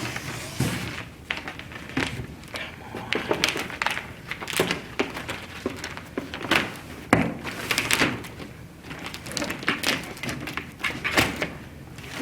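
Crinkling and rustling of a self-adhesive sheet being peeled and pressed onto a cardboard box by hand, with scattered light knocks against the cardboard.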